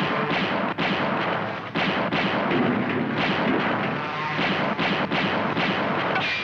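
Cartoon sound effects of rifle gunfire: a run of sharp shots at uneven spacing over a continuous rushing noise.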